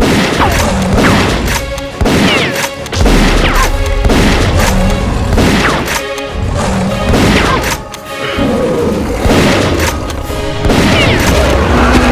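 Loud action background music with heavy booming hits about every second, and falling sweeps laid over it.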